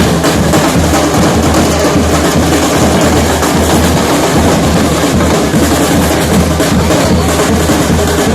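Loud music with a heavy, pounding drum beat and a strong bass pulse.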